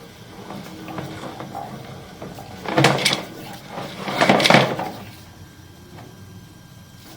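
Two short rough scraping, clattering noises about a second and a half apart, over a faint steady low hum.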